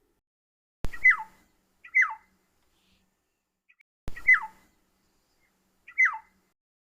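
Black-headed oriole calling: four downward-sliding whistled calls, in two pairs about a second apart, each pair preceded by a sharp click.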